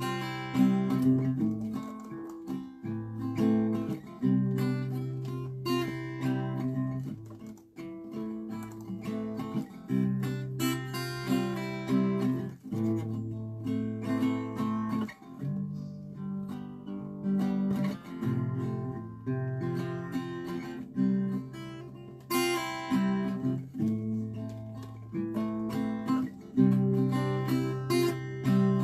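Black cutaway acoustic guitar strummed in simple chords, the chord changing every couple of seconds.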